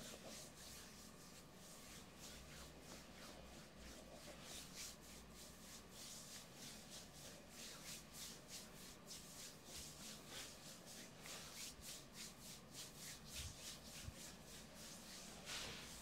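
Hands kneading and rubbing oiled skin on a thigh: faint, soft swishing strokes, a few each second.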